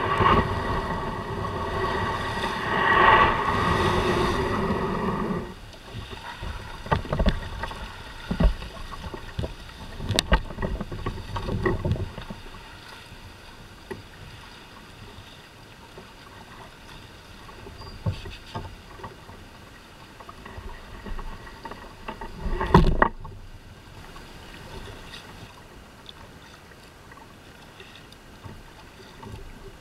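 Kayak paddle dipping and splashing in choppy water, with scattered sharp knocks of the paddle against the hull and some wind on the microphone. A louder steady rush fills the first five seconds or so, and the sharpest knock comes a little over twenty seconds in.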